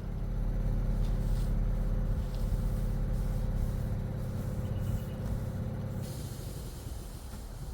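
A steady low machine drone with a faint steady tone in it, which fades about six seconds in as a hiss of air starts.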